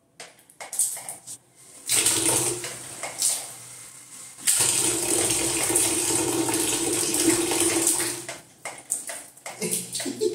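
Water running from a bathroom tap and splashing into the sink, starting about two seconds in, dipping briefly, then running steadily and stronger before stopping about two seconds before the end, followed by a few scattered splashes and knocks.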